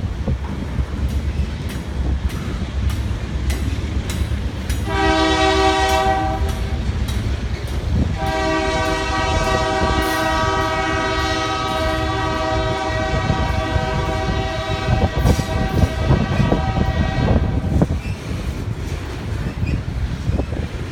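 Double-stack intermodal train's well cars rolling past with a steady rumble and clicking of wheels over rail joints. A locomotive horn sounds a short blast about five seconds in, then a long blast of about nine seconds.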